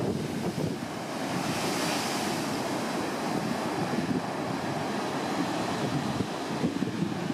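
Ocean surf breaking and washing over the rocks below, a steady rush that swells into a louder hiss about two seconds in. Gusty wind buffets the microphone.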